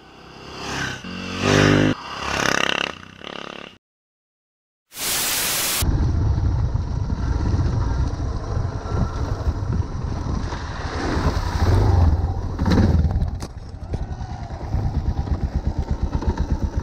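A motorcycle engine swells as the bike passes close by, then fades. After a short silence and a brief burst of hiss, a Suzuki DR650's single-cylinder engine runs at low revs, heard from on board, its firing pulses plain as it crawls along the trail.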